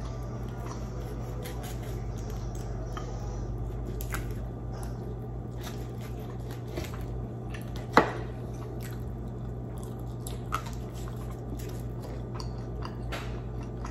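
Close-miked eating sounds of cooked squid: soft chewing and wet squishing as the squid is eaten and torn apart by hand, with scattered small clicks and one sharper click about eight seconds in. A steady low hum runs underneath.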